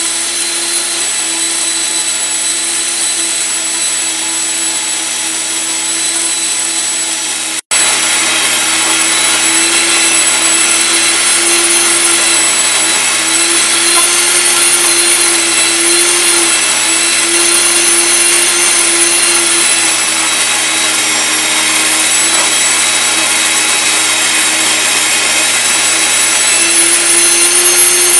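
NutriMill Classic electric grain mill running steadily, grinding wheat berries into fine bread flour: a loud, even motor noise with a high whine. The sound drops out for an instant about eight seconds in, then carries on.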